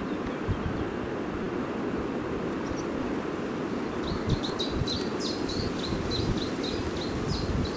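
Wind rumbling on the microphone, with a small bird singing a rapid series of short, high chirps from about halfway through.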